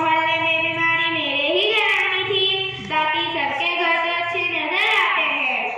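A girl's voice singing a slow, unaccompanied melodic line into a handheld microphone. She holds long notes with wavering, ornamented pitch and breaks briefly for breath twice in the middle.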